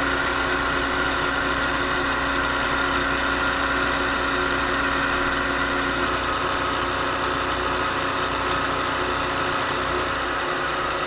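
Knee-type milling machine running steadily, its end mill cutting along the edge of a wooden plaque blank as the table feeds past. It is a constant machine hum with a few steady tones and no break.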